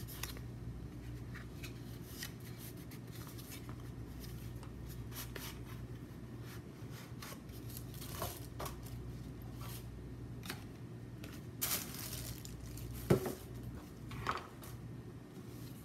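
White cardboard boxes and tissue paper being handled: scattered light rustles, scrapes and taps, with a sharper knock near the end, over a steady low hum.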